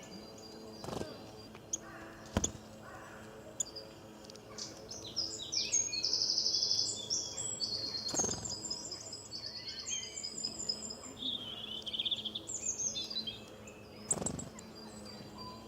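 Songbirds chirping and twittering, several high calls overlapping, with a rapid high trill in the middle as the loudest part. A few brief knocks and a faint steady low hum lie underneath.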